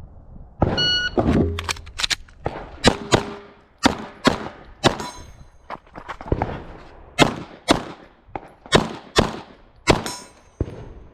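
A shot timer beeps once, then a pistol fires a fast string of about twenty shots, many in quick pairs, with steel targets ringing after some hits.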